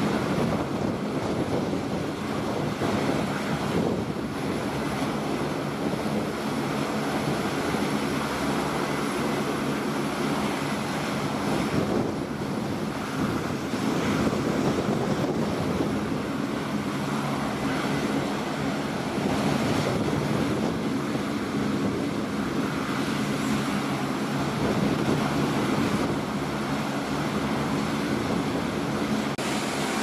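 Turboprop engines of a C-130J Super Hercules running steadily on the ground: a constant drone with a steady low propeller hum.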